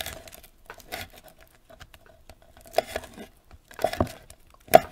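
Chef's knife slicing dried jujubes on a wooden cutting board: about five sharp knocks of the blade meeting the board, spaced a second or so apart, the loudest near the end.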